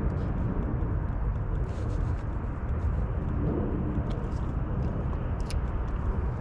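Steady low rumble of wind on the microphone, with faint light clicks scattered through it.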